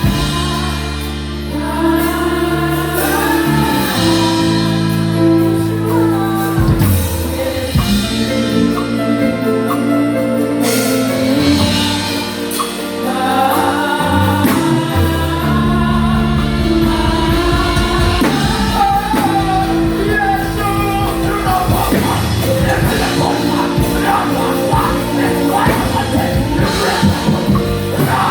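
A gospel worship song: voices singing a melody over sustained low chords, with a steady beat coming in about halfway through.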